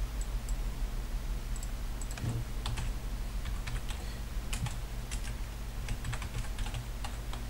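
Computer keyboard being typed on in short, irregular runs of key clicks, starting about two seconds in, over a steady low hum.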